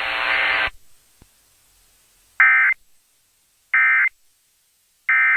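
Emergency Alert System end-of-message signal over a weather radio: three short bursts of digital data tones, about a second apart, marking the end of the warning broadcast. Before them, radio hiss cuts off suddenly under a second in.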